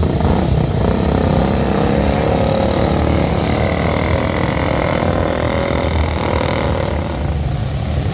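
Engines running steadily, a loud continuous rumble.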